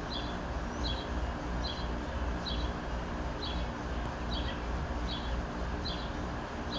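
2015 Trane XR14 2.5-ton air conditioner condensing unit running steadily, a low hum with the rush of its fan. Over it a bird gives short two-note chirps at an even pace, a little faster than once a second.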